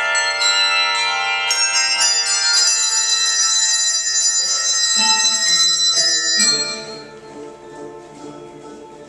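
Handbell choir ringing many overlapping, sustained bell tones that blend into chords, with high bells entering about two seconds in. Near the end the ringing falls to a noticeably quieter passage of lower bells.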